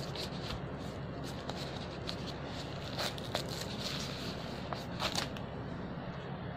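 A cardboard product box being handled and opened by hand, its inner box slid out of the outer sleeve: dry rustles and scrapes, with a few sharp clicks about three and five seconds in. A steady low hum runs underneath.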